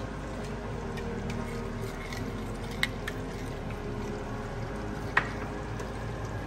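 Steady low hum and hiss of a pan of duck curry cooking on a gas hob, with a few light clicks and one sharper knock a little after five seconds in.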